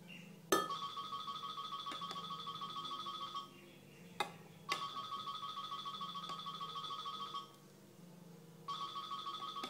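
Telephone ringing: a fast trilling electronic ring in bursts of about three seconds with pauses of about a second between them, which is left unanswered. Two sharp clicks, one just before the first ring and one in the first pause.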